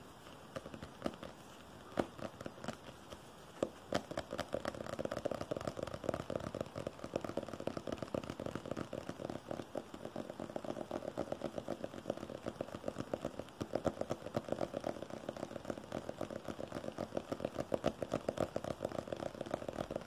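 Fast fingernail tapping and scratching on a glossy blue hard case for ASMR. It starts as scattered single taps, then becomes a dense, rapid, crackly run of taps about four seconds in.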